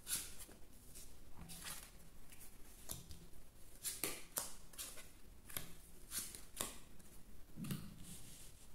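Lenormand cards being slid off a deck and laid down on a cloth-covered table: about a dozen short papery swishes and light taps at irregular spacing, with a soft thump near the end.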